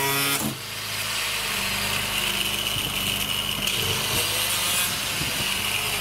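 Handheld angle grinder running and grinding, a steady abrasive rasp over a constant whine. About half a second in the sound changes abruptly and drops in level, then carries on steadily.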